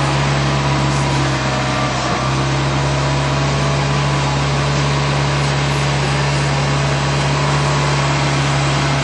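A motor running steadily with a constant low hum and an even hiss, unchanging throughout.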